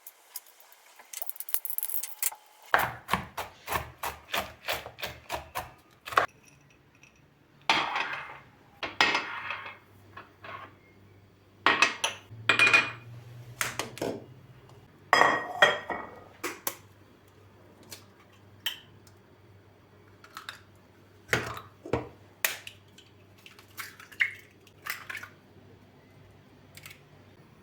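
Kitchenware clattering: dishes, pots and utensils knocked and set down in a series of sharp, irregular clinks and clunks. A low steady hum starts about three seconds in and continues under them.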